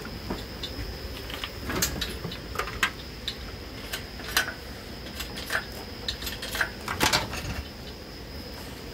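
Scattered metallic clinks and knocks as the Grand Am's 3.4L V6 engine, hanging from an engine hoist, is worked up and out of the engine bay, its parts bumping against the surrounding metal; the loudest knocks come about two, four and seven seconds in.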